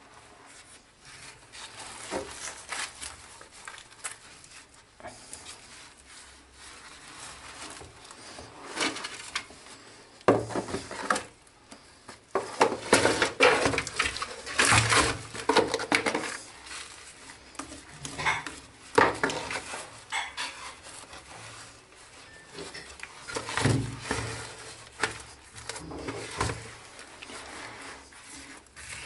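Gloved hands rubbing and smearing wet cement mortar and a mortar-soaked bandage onto a cracked cast-iron sewer pipe, in irregular scrapes and rubs that are loudest in the middle.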